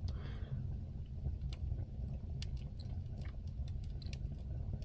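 Cardboard and kindling burning in a wood stove, crackling with scattered sharp pops over a steady low rumble of the fire drawing air through the door left ajar.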